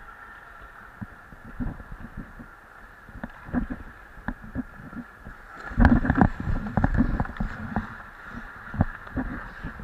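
Ice hockey skates striding and scraping on the rink ice, heard through a camera worn by the skater, with a run of knocks and thuds. About six seconds in the scraping and knocking grow louder and denser.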